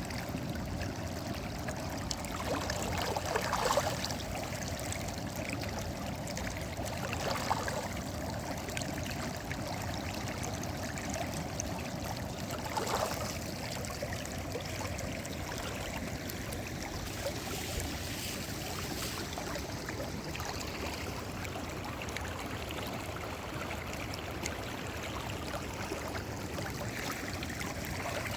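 Fish frying in hot oil in a pan: a steady sizzle with fine crackling and three brief louder swells.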